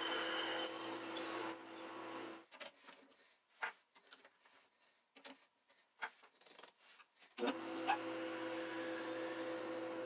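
Atlas metal lathe running with a steady motor hum and a high whine as a twist drill cuts a bronze tube. The motor stops about two and a half seconds in, and a few light clicks and knocks follow as the drill is swapped for a reamer in the tailstock chuck. The lathe starts up again about seven and a half seconds in.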